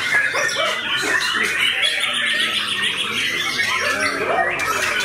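White-rumped shama (murai batu) singing a continuous, rapid, varied song of quick chirps, trills and sliding notes.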